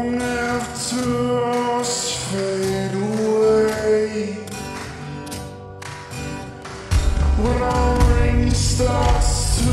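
Slowed-down, reverb-drenched pop song: a sung vocal holds long, echoing notes over the accompaniment. About seven seconds in, a deep bass comes in and the music gets louder.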